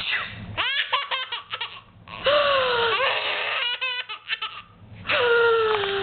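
Baby belly-laughing in long squealing peals, with quick stuttering laugh pulses in between.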